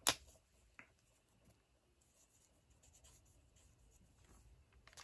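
A sharp click at the start, then the faint soft scratching of an alcohol marker's brush tip colouring on cardstock.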